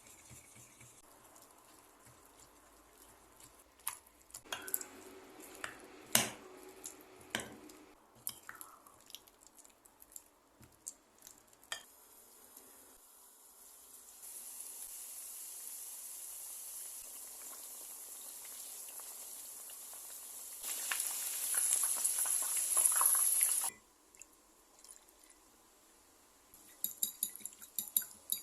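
Kitchen food-preparation sounds: scattered clinks and knocks of utensils against bowls and dishes, then a steady hiss that grows louder and stops abruptly, with a few more clinks near the end.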